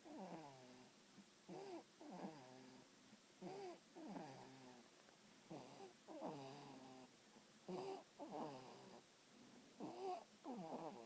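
Faint snoring in a steady rhythm, about one breath every two seconds. Each breath is a short pitched sound followed by a longer one that falls in pitch.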